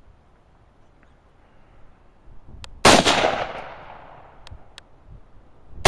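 AR-15 rifle fired once about three seconds in, a sharp crack whose echo fades over a couple of seconds; a second shot goes off right at the very end.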